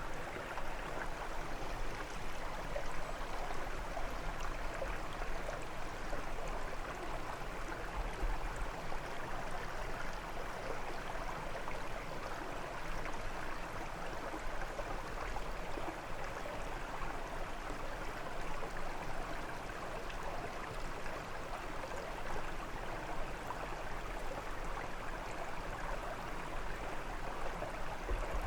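Brook water flowing and splashing over stones, a steady rushing and babbling.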